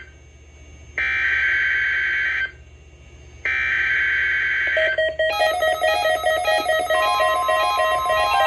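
NOAA Weather Radio SAME alert header for the weekly test: two bursts of raspy digital data screech of about a second and a half each, separated by about a second of quiet. About five seconds in, a run of short electronic tones stepping in pitch begins, and a steady tone joins about two seconds later.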